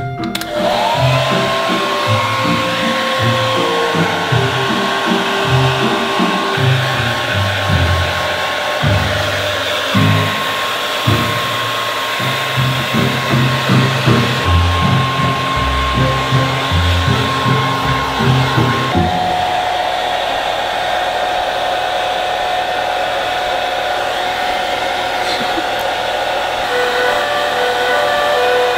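Hand-held hair dryer blowing steadily on a wet puppy's fur. Its motor whines up to speed within the first second, and about two-thirds of the way through the whine drops to a lower, steady pitch. Background music plays underneath.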